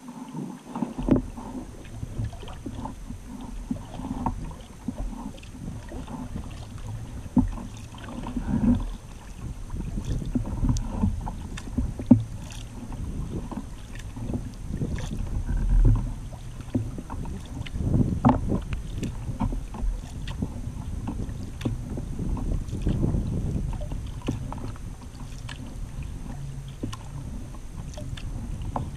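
Wooden kayak under way: water lapping and gurgling along the hull, with irregular paddle splashes every few seconds over a low rumble of wind on the microphone.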